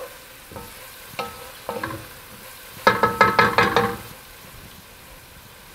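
Chopped onion and celery sizzling softly in butter and olive oil in a pot while a wooden spoon stirs them. The spoon knocks against the pot in short rattling clatters with a brief ringing tone, the loudest about three seconds in.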